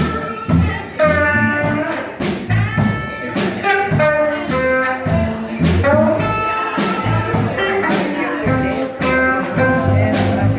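Live blues band playing an upbeat instrumental passage: guitar over a stepping bass line and a steady drum beat.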